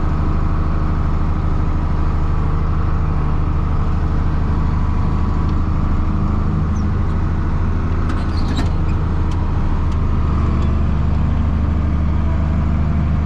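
Farm tractor engine running at a steady speed, with a brief clatter about eight and a half seconds in.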